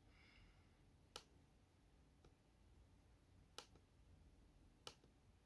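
Near silence with a few faint, sharp computer clicks: one about a second in and two more in the second half, as options are picked from an on-screen drop-down menu.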